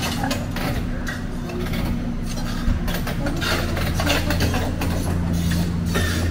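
Heavy diesel engine running steadily at a low idle, with a sharp knock a little before the middle.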